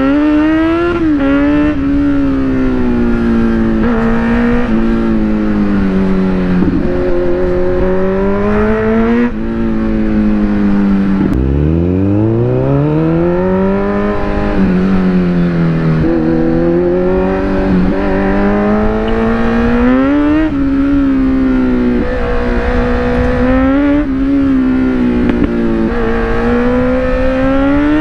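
Kawasaki Z900's inline-four engine, fitted with a loud aftermarket exhaust, under way. Its revs rise and fall with throttle and gear changes, dropping low about eleven seconds in and then climbing steadily through the gear.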